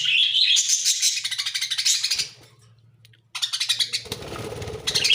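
Budgerigars chattering in a rapid, continuous warble, which breaks off a little past two seconds in and starts again abruptly about a second later.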